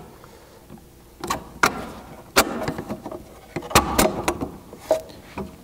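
A string of about eight sharp clicks and knocks of hard plastic and metal parts handled and fitted together by hand, as the original spare-tire studs are slid through the plastic spacer and the factory tire mount.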